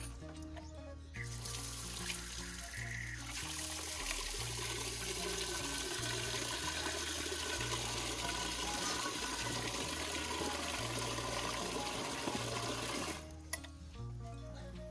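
Tap water from a water tank pouring steadily into a pot, starting about a second in and cutting off about two seconds before the end, over background music.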